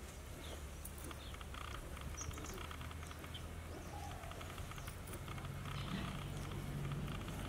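Faint outdoor ambience of birds chirping and insects, over a low steady hum that grows a little stronger near the end.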